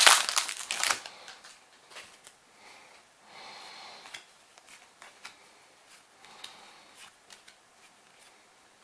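Foil booster-pack wrapper crinkling loudly as it is torn open during the first second, then trading cards being slid and flipped through one by one, with soft rustles, light clicks and brief sliding hisses.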